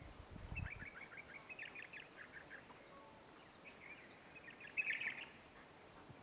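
Birds chattering in two spells of quick, high chirps, the second one louder, over a faint outdoor background. A brief low rumble sounds in the first second.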